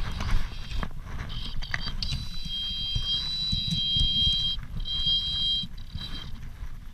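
Fly reel's click-and-pawl drag buzzing at a high, steady pitch as a hooked salmon pulls line off the spool. The buzz runs in long stretches and breaks off several times, over a low rumble.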